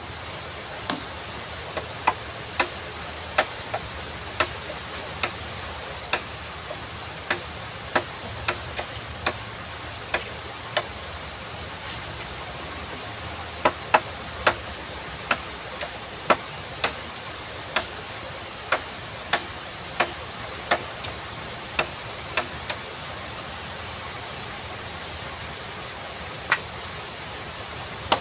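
Machete chopping into a green bamboo pole: repeated sharp knocks, irregular, about one a second. Underneath runs a steady high-pitched insect drone that briefly breaks off twice.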